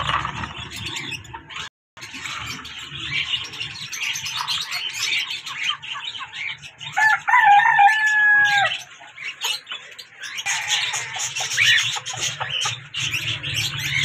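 A flock of caged aviary birds, cockatiels among them, chirping and chattering continuously, with one long drawn-out call standing out about seven seconds in.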